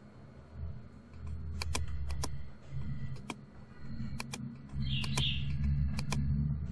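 Computer mouse clicking, mostly in quick pairs about once a second, as lines are drawn in SketchUp with the pencil tool. A low, uneven hum runs underneath.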